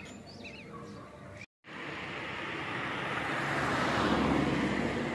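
Birds chirping for about a second and a half, then, after a brief dropout, a rushing noise that swells and fades.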